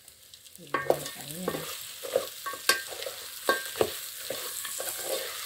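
Roasted meat sizzling in oil with tomatoes and onions in a stainless steel pan, starting a moment in, while a spoon stirs it, scraping and clinking against the metal pan.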